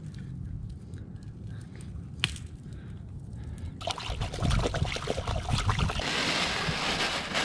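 Muddy water in a mylar-blanket-lined pit being stirred with a stick to mix in Chlor-Floc purification powder, then the mylar emergency blanket crinkling and crackling as it is grabbed and folded, getting louder toward the end.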